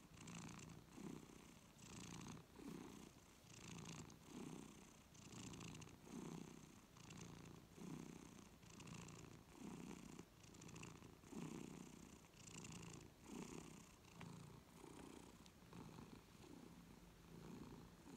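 Long-haired tabby cat purring softly while being stroked on the head, the purr swelling and fading with each breath a little more than once a second.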